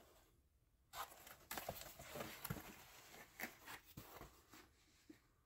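Faint scattered rustles and taps of a cardboard record mailer being opened and handled around a vinyl LP, starting about a second in.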